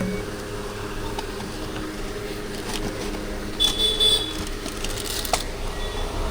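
Background traffic noise with a steady low hum and a few faint clicks, and a short high-pitched beep about three and a half seconds in.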